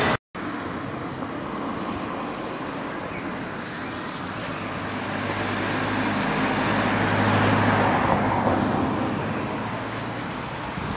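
A motor vehicle's engine hum over a steady noisy background, swelling to its loudest about two thirds of the way through and then fading.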